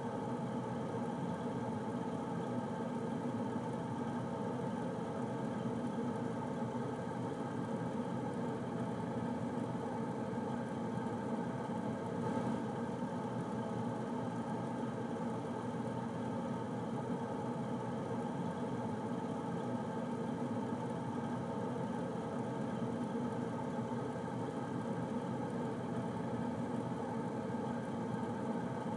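Air conditioner running steadily: an even hum of several steady tones over a smooth rush of air, unchanging throughout.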